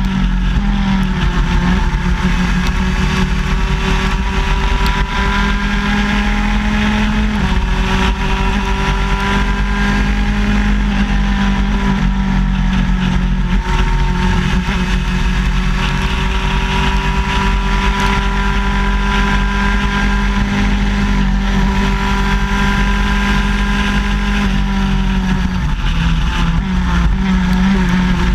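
Two-stroke shifter kart engine heard from onboard the kart, running hard under racing load, its pitch holding fairly level with slow rises and falls and a few abrupt pitch changes.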